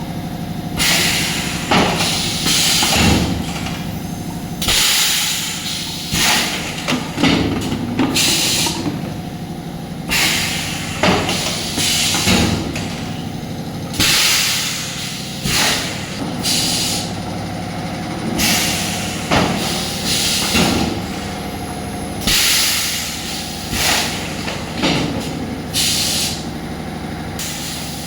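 Bottle-blowing machine running: loud hissing blasts of compressed air every second or two as the moulds blow and vent, over a steady machine hum.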